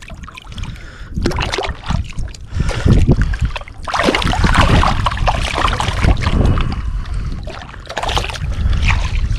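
Shallow bay water sloshing and splashing around a wading angler, louder for a couple of seconds about four seconds in, with wind rumbling on the microphone.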